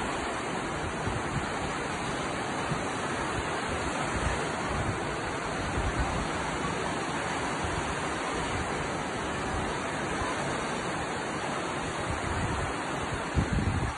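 Steady rush of surf breaking on a sandy beach, with some wind rumbling on the microphone.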